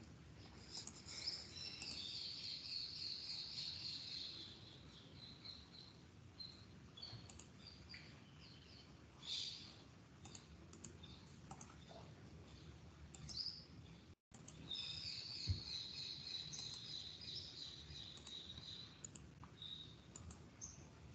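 Faint bird chirping in two spells of a few seconds each, about a second in and again past the middle, with scattered clicks of a computer mouse and keyboard over a low background hiss.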